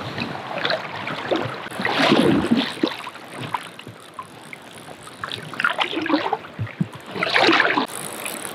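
River water splashing and sloshing in a current, with louder splashes about two seconds in and again near the end.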